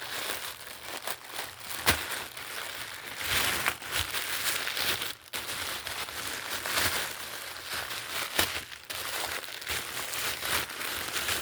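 A package being opened by hand: its packaging crinkling, rustling and tearing throughout, with a few sharp snaps, the loudest about two seconds in.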